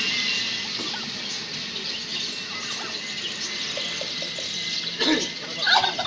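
Domestic turkeys calling: scattered faint chirps over a steady hiss, with a few louder short calls about five seconds in.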